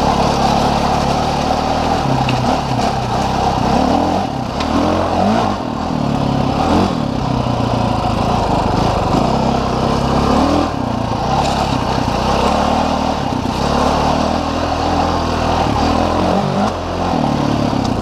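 Dirt bike engine heard from the rider's position, running hard along a trail, its pitch rising and falling as the throttle is worked. It eases off briefly a few times: about four to five seconds in, around the middle, and near the end.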